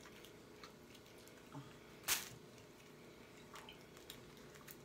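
A person's mouth chewing lobster tail meat, with soft wet smacks and one louder lip smack about two seconds in.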